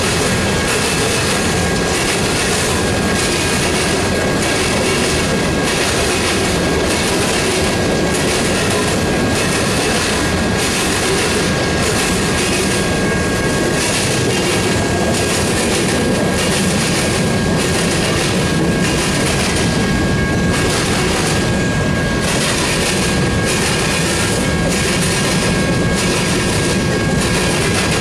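Freight train's covered hopper cars rolling past close by, their steel wheels clicking over the rail joints about once a second over a steady rumble and hiss. A thin steady high tone runs underneath.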